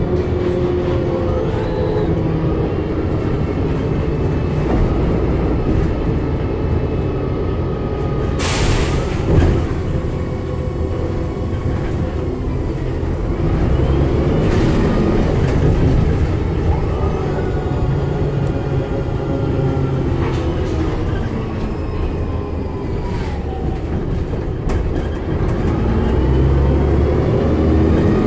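DAF DB250LF / Plaxton President double-decker bus heard from inside the lower saloon while under way: the diesel engine and drivetrain run with a steady rumble and a whine that rises and falls in pitch several times as the bus accelerates and slows. A short hiss of air comes about eight seconds in.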